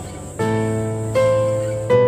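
Background music: a slow, gentle melody of held notes, a new note coming in three times.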